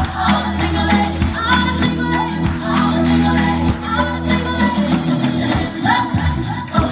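Upbeat Latin dance music with a female vocal over steady bass and percussion.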